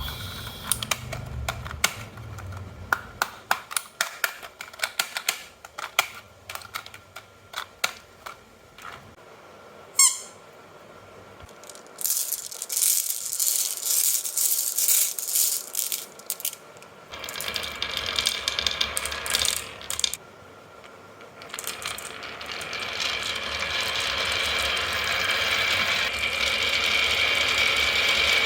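Marbles rolling and clacking down a wooden HABA marble run: scattered clicks and knocks, a single ringing strike about ten seconds in, then a louder, denser rolling rattle that turns steady over the second half.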